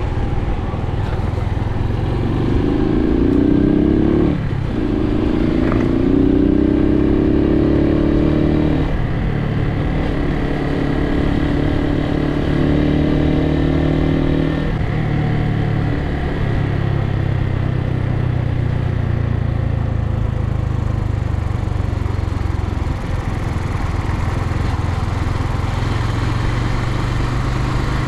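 Suzuki TU250x's single-cylinder engine accelerating through the gears: the pitch rises, then drops at upshifts about 4 and 9 seconds in, and from about halfway it runs steadily at cruising speed. A continuous rush of wind and road noise runs underneath.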